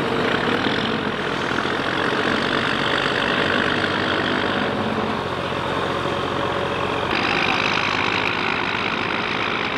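Diesel engine of a river cargo barge running steadily under a continuous hiss; the sound turns brighter about seven seconds in.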